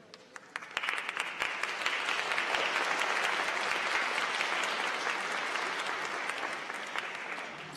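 Audience applauding: a few scattered claps at first, swelling into full applause within a couple of seconds, then dying away near the end.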